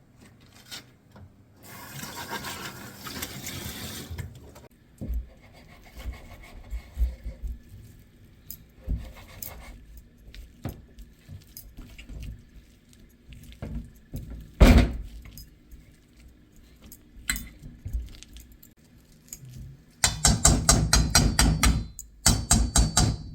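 Household handling sounds: a short rush of liquid-like hiss, scattered knocks and clatter with one loud knock about two-thirds of the way through, then a few seconds of fast, dense scrubbing or rattling strokes near the end.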